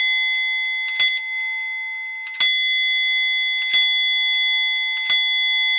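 Antique grandfather clock's hammer striking its bell once about every 1.4 s, four blows, each leaving a clear ringing tone that carries on into the next. It is the hour strike working again on the rack-and-snail striking train, now that the rack tail has been bent back off the snail.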